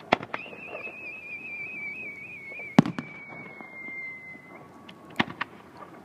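Fireworks bursting in sharp bangs, the loudest about three seconds in and two close together near the end. A whistling firework gives a high, wavering whistle that sinks slowly in pitch over about four seconds.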